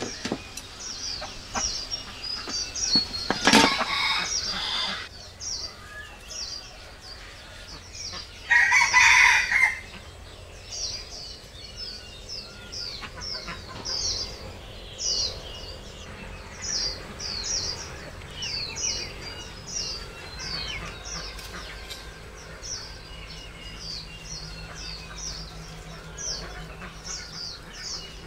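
A rooster crows once, loudly, about nine seconds in, over a steady run of quick, high, falling chirps about twice a second. A sharp clatter sounds about three and a half seconds in.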